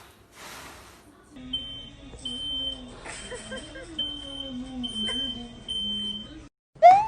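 A series of high-pitched electronic beeps of uneven length, with a lower wavering tone running under them. Near the end there is one loud, short rising call.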